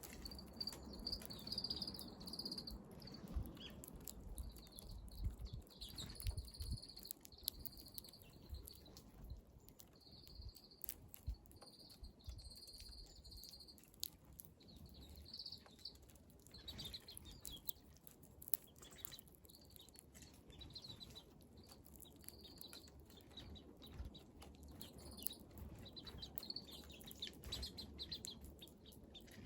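Small wild birds calling with short, high chirps, repeated many times, with scattered light taps and clicks.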